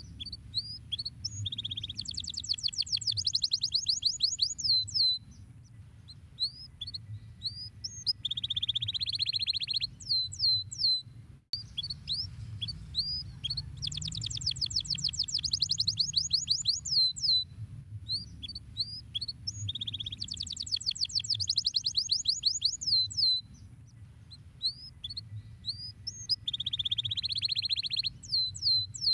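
Canary singing: repeated phrases of very fast trills and sweeping whistled notes, broken by a brief gap about a third of the way in, over a faint low hum.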